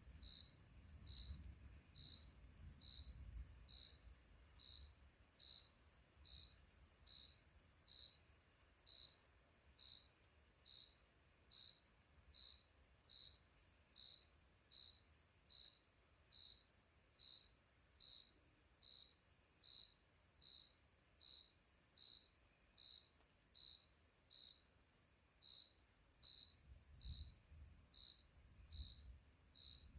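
A cricket chirping steadily, one short high chirp a little more than once a second, evenly spaced. A faint low rumble comes in near the end.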